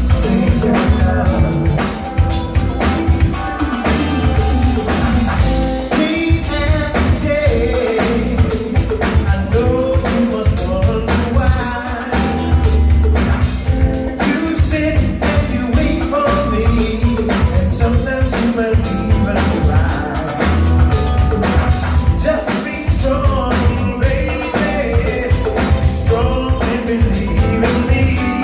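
Live funk band playing a song at a soundcheck: a drum kit keeps a steady beat under a heavy bass line, and a lead voice sings over the top.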